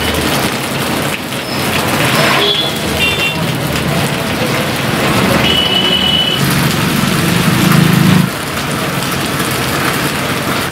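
Motorcycle, scooter and car traffic moving through a flooded, rain-soaked street, with a steady wet hiss. A few short high horn beeps sound around two to six seconds in, and a passing engine is loudest about seven to eight seconds in.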